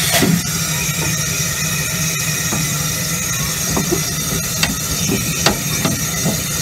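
Miniature steam locomotive standing with steam hissing steadily, with a sharp knock just after the start and a few light clicks.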